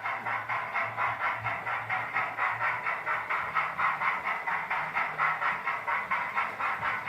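Hornby TTS sound chip in a West Country class 'Bideford' model locomotive playing steam exhaust chuffs through the model's small speaker, at a steady beat of about four chuffs a second while the model runs.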